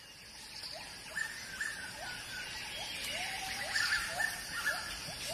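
Animal calls over a steady high hiss of forest ambience: many short calls, each a quick upward sweep that levels off into a brief held note. They begin about a second in and come more thickly, overlapping, toward the end.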